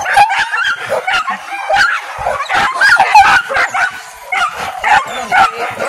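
A pack of hunting dogs barking and yelping excitedly, many calls overlapping, as the dogs give chase in a wild boar hunt.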